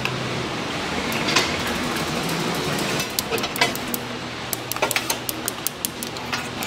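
Long-nozzle gas lighter clicking as it lights a row of gas burners under a flat steel griddle, over a steady rush of burning gas. There are a few single clicks at first, then about four clicks a second in the second half.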